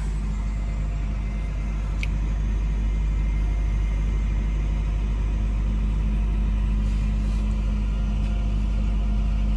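Semi-truck's diesel engine idling steadily, heard from inside the cab as a low, even rumble, with a single faint click about two seconds in.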